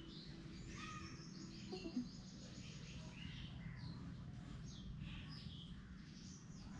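Small birds chirping in the background, short repeated high calls over a steady low hum.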